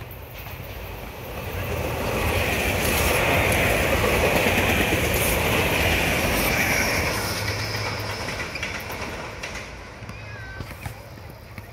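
A SEPTA Regional Rail electric commuter train passing close by on the rails. The sound builds over about two seconds, is loudest midway, then fades away as the train moves off.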